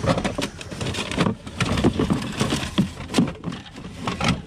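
Hard plastic toys and other items knocking and clattering against each other and the sides of a plastic storage tote as hands rummage through it: a string of irregular knocks and rattles.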